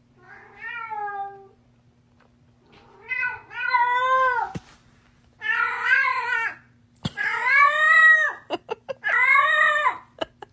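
A tabby house cat meowing loudly in a string of about five long, drawn-out yowls, the later ones louder.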